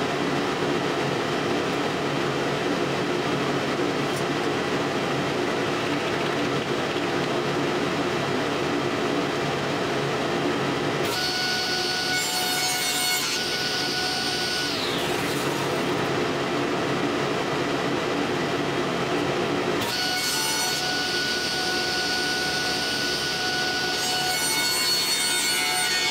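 Grizzly G0690 cabinet table saw running steadily while narrow plywood strips are ripped into sled runners. Two stretches of cutting, starting about 11 and 20 seconds in, bring a brighter, higher ringing note as the blade bites the plywood.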